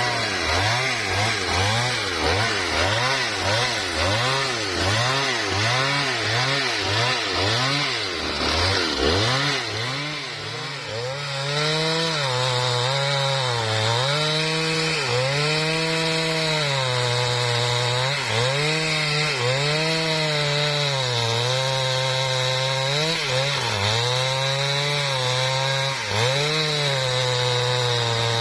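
Husqvarna 395XP two-stroke chainsaw ripping lengthwise through a mahogany log under load. Its engine pitch rises and falls about twice a second at first, then, after a short drop about ten seconds in, holds high with slower dips every couple of seconds.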